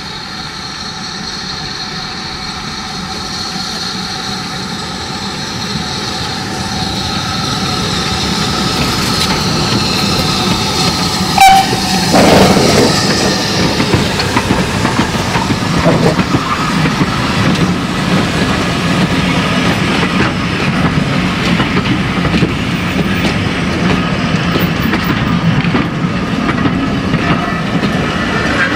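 BR Standard Class 4 2-6-4 tank locomotive No. 80136 approaching and passing with a train of coaches, growing steadily louder, with a brief loud sound as it draws level. The coaches' wheels then clatter rhythmically over the rail joints.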